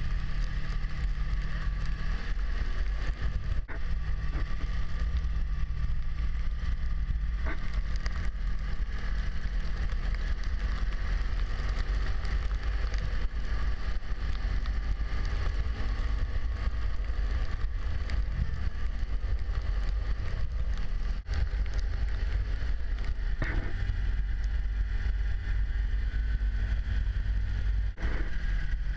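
Snowmobile engine running steadily while being ridden, with wind buffeting the microphone. A few brief knocks come through, at about a quarter of the way in and twice near the end.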